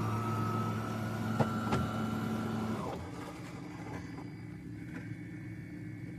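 De'Longhi Rivelia espresso machine running with a steady electric hum, which cuts off about three seconds in and leaves a faint background hum with a few small clicks.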